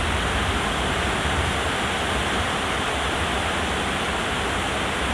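Steady hiss of background noise with no change in level, the noise floor that runs under the whole narration.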